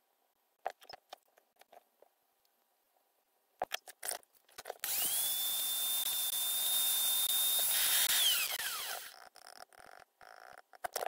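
Small pen-style rotary tool with a pink grinding stone spinning up to a steady high whine and grinding the end terminal of a battery cell clean for about four seconds, then winding down. Light handling clicks come before and after it.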